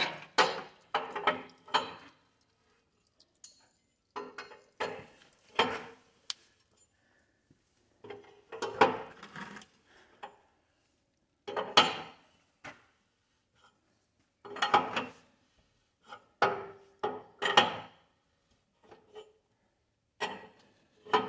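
Metal clanking and scraping in short bursts every two to three seconds, from hand work on the tractor splitting stand and its jacks.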